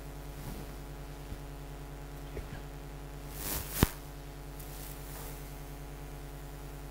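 Marker writing on a whiteboard: a few faint strokes and ticks, then a short scratchy stroke ending in a sharp tap about four seconds in, over a steady hum.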